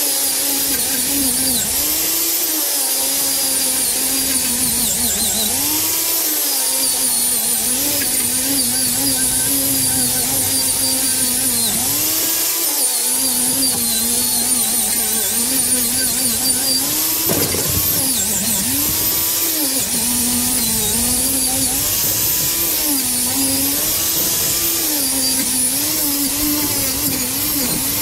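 Electric angle grinder running against the rusty metal frame of a trolley, its motor pitch sagging and recovering every few seconds as it is pressed into the work.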